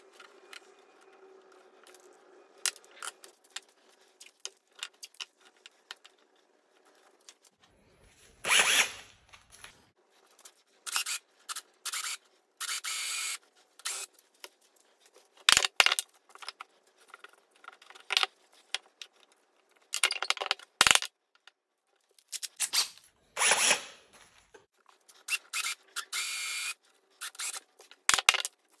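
Cordless drill boring an angled leg mortise into a wooden stool seat, run in a series of short bursts with pauses between them, some bursts with a high whine. Before the drilling starts there are only light clicks and taps of tools being handled.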